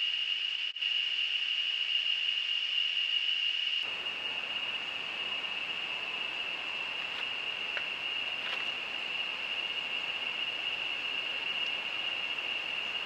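Rainforest ambience picked up by a trail camera's microphone: a steady high-pitched insect drone over hiss, with a brief dropout under a second in. About four seconds in the hiss becomes louder and fuller, and a few faint ticks follow.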